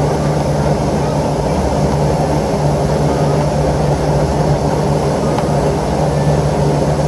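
Air-conditioning condensing unit running: the condenser fan's rush over a steady compressor hum. The system shows no superheat and is flooding liquid back to the compressor, which the technician puts down to an overcharge or a restriction.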